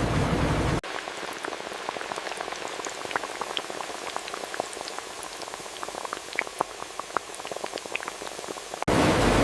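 French fries frying in hot oil, bubbling with dense small crackles and pops. A loud steady rushing noise cuts off suddenly about a second in and comes back suddenly near the end.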